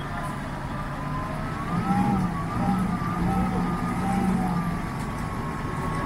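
Engine of a Mitsubishi L200 pickup stuck in mud, revving under load. A steady drone strengthens about two seconds in, with a wavering whine above it that rises and falls.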